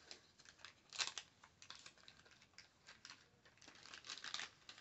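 Paper wrapper of a 1990 baseball card pack being peeled and torn open by hand: faint crinkling and tearing in a string of short crackles, strongest about a second in and again near the end.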